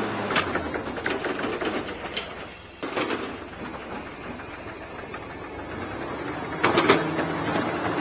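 Ladder truck's lift mechanism running: a steady mechanical whir with scattered sharp clicks and clacks. It dips briefly just before three seconds in and grows louder near the end.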